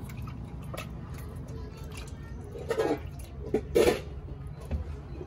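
Water sloshing in a metal bowl as hands rub tomatoes and a green pepper clean, with two louder sounds about three and four seconds in.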